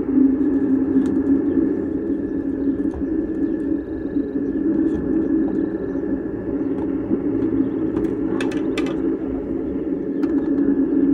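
Heavy Group 31-size battery and capacitor cases being handled, with a few sharp knocks and clunks, the loudest a quick pair about eight and a half seconds in as a case is set down on concrete. A steady low hum runs underneath.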